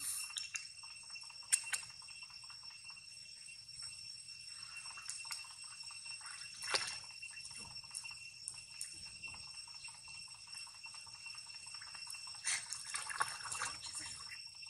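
Young long-tailed macaques splashing and paddling in a pool: irregular small splashes and drips, with busier splashing about seven seconds in and again near the end. A steady high-pitched hum runs underneath.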